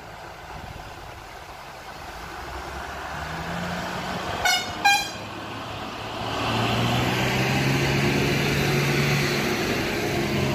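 Truck engine running and growing louder as the truck draws near, with two short horn toots about four and a half seconds in.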